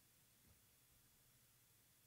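Near silence: faint room tone with a low hum, and one faint soft tap about half a second in.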